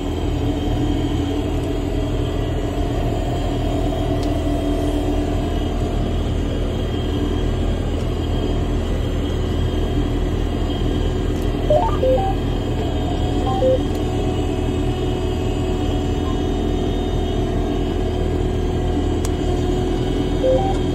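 Steady rumble and hum of a John Deere R4023 self-propelled sprayer running across the field, heard from inside the cab. A few short electronic beeps sound about halfway through and again near the end.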